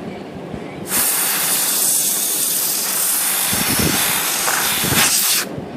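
Compressed air hissing steadily out of a nozzle for about four and a half seconds, starting about a second in and cutting off suddenly near the end, blowing solvent out of a typewriter's type bars.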